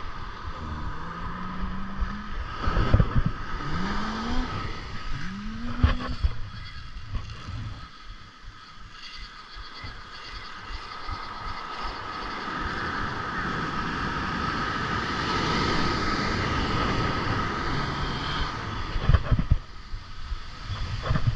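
Surf breaking on the beach with wind on the microphone, swelling loudest about two-thirds of the way through, while a spinning reel is cranked to retrieve line. Three short rising tones come in the first six seconds, and a few sharp knocks or handling bumps are scattered through.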